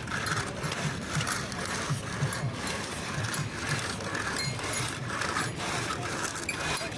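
Construction-site machinery clattering and rattling steadily with many small irregular clicks over a low rumble.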